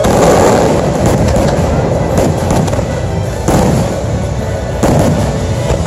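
Fireworks show: aerial shells bursting over a continuous rumble, with several sharp bangs, the strongest about three and a half seconds in and near five seconds. Music plays throughout.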